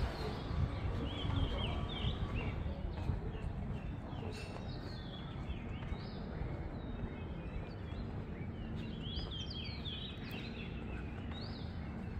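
Birds chirping in short scattered calls over a steady low background rumble.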